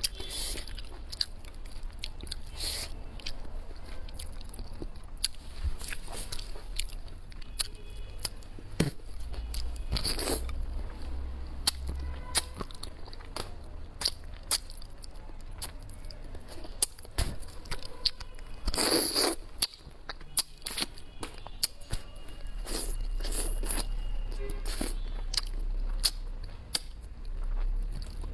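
A person eating close to the microphone, chewing and crunching bites of food, with many short sharp clicks scattered throughout.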